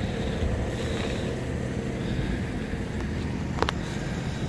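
1957 Ford Thunderbird V8 running steadily with a low, even rumble, with one brief sharp squeak or click a little over three and a half seconds in.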